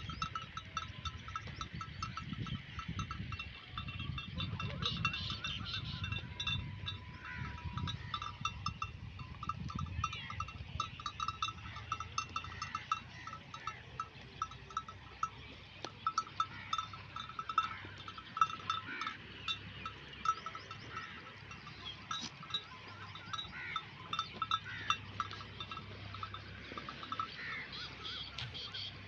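Bells worn by a grazing flock of dumba sheep, clinking and jingling irregularly and continuously as the animals move and feed.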